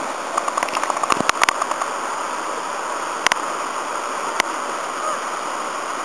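Steady rush of whitewater in a rocky mountain stream, pouring down a small chute into a pool. A few sharp clicks or knocks stand out over it, a quick cluster about a second in and single ones a little after 3 s and 4 s.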